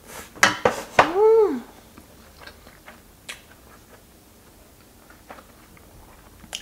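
A spoonful of rice taken into the mouth with wet lip-smacking clicks, then a short hummed "mm" that rises and falls in pitch about a second in, followed by soft chewing clicks.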